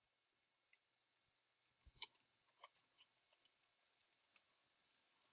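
Near silence with a few faint, scattered clicks of computer keys being pressed, starting about two seconds in.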